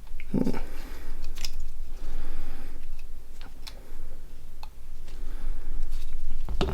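Scattered light clicks and taps of small mobile-phone parts being handled and fitted into the housing during reassembly, over a low steady hum.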